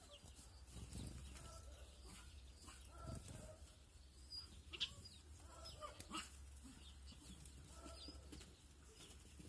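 Faint chirps of small garden birds, with a couple of short, sharp taps about five and six seconds in, over a low steady hum.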